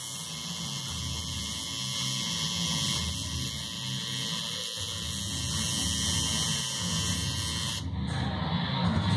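Electric tattoo machine buzzing steadily while the needle works ink into skin.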